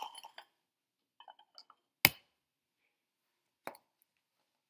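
A few light clicks, then a sharp clink about two seconds in and a lighter one near the end: ceramic plates being picked up and set down on a stone countertop.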